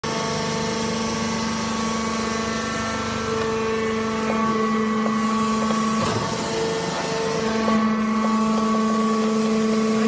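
Hydraulic power unit of a wood-chip bagging press baler running with a steady machine hum. About six seconds in, the hum's note dips and shifts for a moment, with a few light knocks, then settles again.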